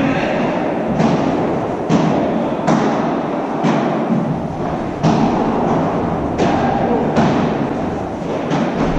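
Padel rally: the ball is struck by padel rackets about once a second, and each sharp hit echoes through a large indoor hall.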